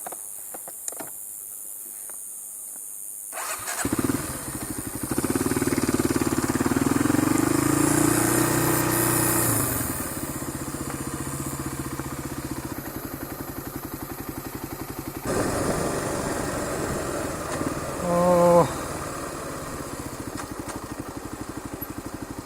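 Motorcycle engine coming in about three and a half seconds in, rising in pitch as it accelerates, then running steadily. A short beep sounds about eighteen seconds in.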